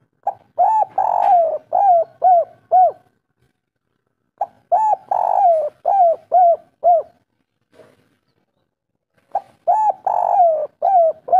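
Spotted dove (tekukur) singing its 'kuk 3' coo: phrases about four and a half seconds apart, each a short lead note, a longer rougher coo, then three short clipped coos. A third phrase begins near the end.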